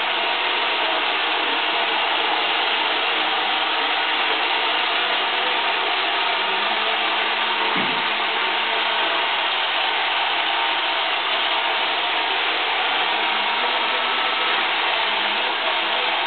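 Robot vacuum cleaner running across a tile floor, a steady whirring hum of its motor and brushes.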